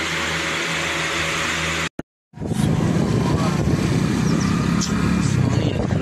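A steady hum for about two seconds, cut off by a brief silence, then a motorcycle engine running as it rides along the road, louder and rough.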